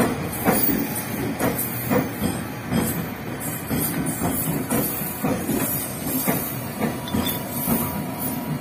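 Tokyo Metro 6000 series electric train passing close by, its wheels knocking over the rail joints one or two times a second over a steady rolling hiss.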